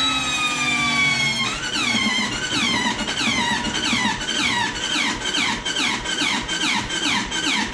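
Electric starter cranking the Linhai Bighorn 260 ATV's engine without it firing. A high starter whine falls slowly, then about a second and a half in it breaks into about two falling chirps a second as the engine turns over its compression strokes. It sounds a little on the rough side.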